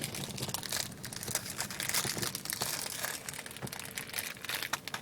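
A plastic snack bag crinkling as it is handled, with a steady run of irregular crackles.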